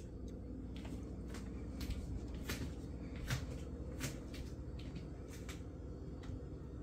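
Footsteps of someone walking through a house: light taps and clicks about every half second to second, over a steady low hum.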